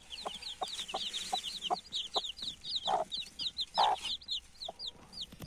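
Newly hatched chicks peeping in quick, high, falling chirps under a broody hen, who clucks low and short about every half second, with two louder clucks past the middle.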